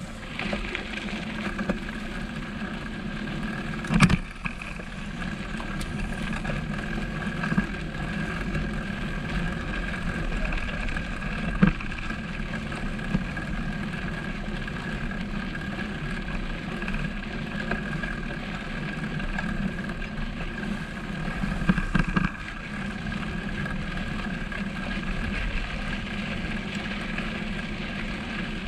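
Bicycle being ridden over a stony dirt track: steady rolling and rattling noise, with sharp knocks from bumps about four, twelve and twenty-two seconds in.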